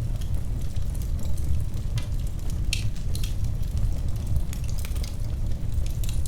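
Wood fire crackling in a fireplace: scattered sharp pops and snaps over a steady low rumble of the flames, with a couple of louder pops near the middle.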